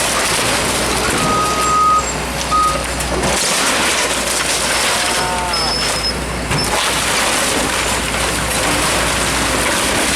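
Heavy demolition machinery working on a building: a loud, dense, steady noise with two short high beeps about a second and two and a half seconds in, and a brief bending squeal about six seconds in.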